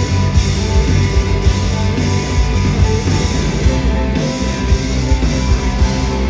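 Rock band playing: guitar over a drum kit, loud and continuous.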